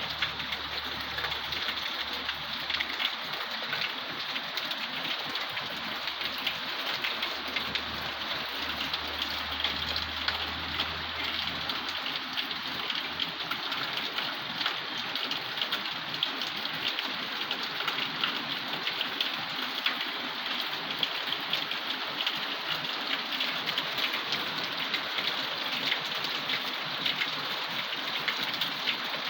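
Steady rain falling, a dense hiss with many individual drops pattering on a surface. A low steady rumble underneath stops about twelve seconds in.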